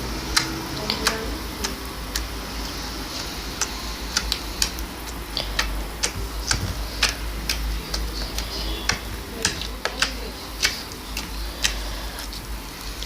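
Slime being squeezed and poked by hand, giving sharp, irregular clicks and pops, about two a second.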